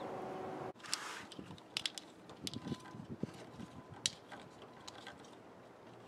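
Faint, scattered small clicks and crinkles of a corrugated plastic wire loom and the wires inside it being handled, thinning out in the last second or two. A faint steady hum cuts off suddenly under a second in.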